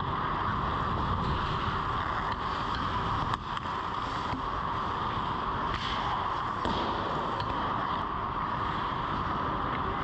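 Ice hockey rink sound picked up from inside the goal: a steady hiss, with a few sharp knocks and scrapes of skates, sticks and puck on the ice scattered through it.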